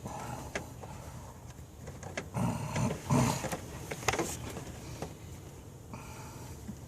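Small hose clamps being tightened by hand on a car's heater hose, with scattered light clicks and scrapes of metal tools. A couple of louder low sounds come near the middle.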